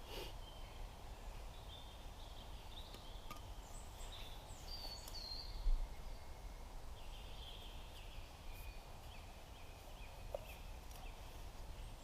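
Wild birds chirping and singing in short scattered phrases, over a steady low rumble, with one soft thump about six seconds in.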